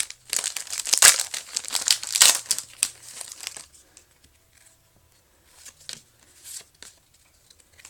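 Pokémon booster pack's foil wrapper crinkling and tearing as it is ripped open, for about the first three and a half seconds, then a few faint rustles from handling the pack and cards.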